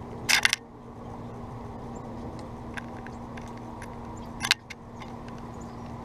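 Eastern bluebird pecking and rummaging through peanuts and seed in a clear plastic window feeder: two short clattering rattles, about half a second in and again at about four and a half seconds, with light taps between, over a steady low hum.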